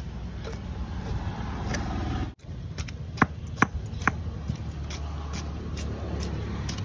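Scales being scraped off a large fish with short scratchy strokes, with three sharp clicks a little after the middle. A steady low rumble runs underneath.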